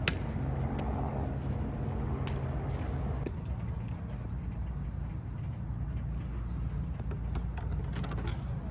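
A motor vehicle's engine humming low, its hum fading out about three seconds in and leaving a low rumble. There is a sharp click right at the start and a few faint ticks later.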